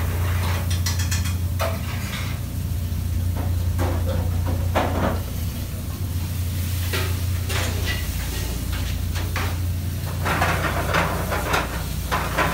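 Steady low hum of a commercial kitchen, with scattered clinks and knocks of plates and utensils on steel counters over a faint hiss; the clatter is busiest near the end as the plate is lifted and carried.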